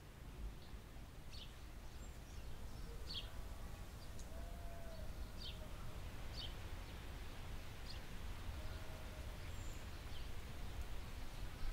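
Nature ambience: birds chirping every second or two, with a few faint, short, lower-pitched calls over a low steady rumble.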